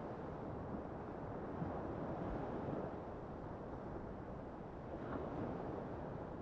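Small waves breaking and washing up onto a sandy beach: a steady rush of surf that swells and eases gently, with wind rumbling on the microphone.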